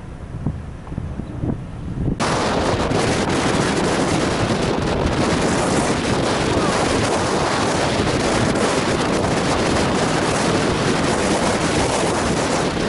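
Strong wind buffeting the camera microphone: a low rumble at first, then, after a sudden jump about two seconds in, a loud, steady roar of wind noise.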